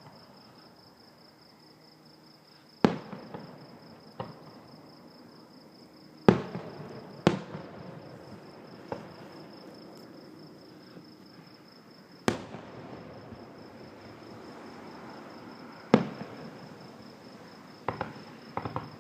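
Backyard fireworks going off: about eight sharp bangs spaced irregularly, each trailing off with crackle and echo. Crickets chirp steadily underneath.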